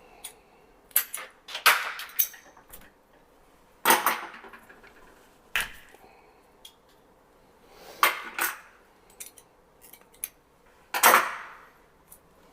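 Sharp clacks and knocks of hand-tool work on a 110 punch-down patch panel, about eight of them spaced irregularly, each with a short ring.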